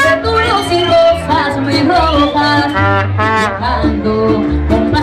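Live Latin band music: a woman singing into a microphone over strummed acoustic guitar, with a pulsing bass beat.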